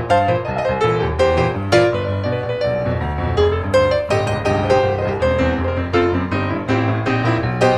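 Background piano music, a steady stream of plucky notes over a bass line.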